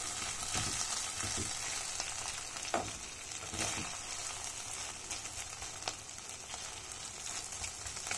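Mashed boiled potatoes sizzling in hot oil in a nonstick pan while a metal spoon stirs and scrapes through them. The frying hiss is steady, with a few sharper scrapes of the spoon against the pan.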